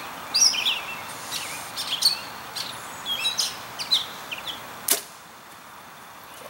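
A Mathews Halon compound bow is shot once, about five seconds in: a single short, quiet snap as the string releases the arrow. Birds chirp throughout.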